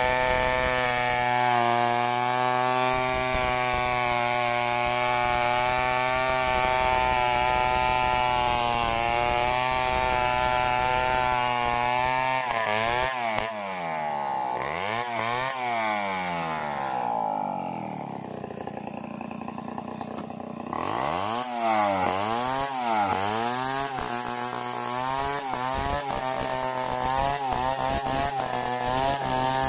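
Gasoline chainsaw running at full throttle, ripping lengthwise through a log. About 12 seconds in it is revved up and down repeatedly, drops to idle for a few seconds, is revved again, and then settles back to a steady full-throttle cut into another log near the end.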